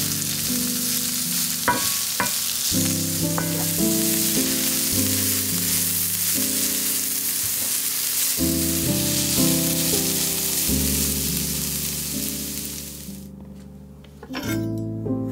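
Sliced red onion and carrot strips sizzling in a hot frying pan as they are stirred with a wooden spatula, with a few light clicks of the spatula. The sizzle fades out near the end, over steady background music.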